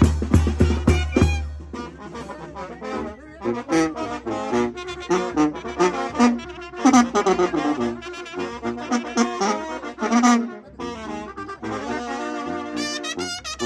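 Mexican banda (brass band) playing: heavy drum beats in the first second or so give way to a brass melody, which settles onto a held chord near the end.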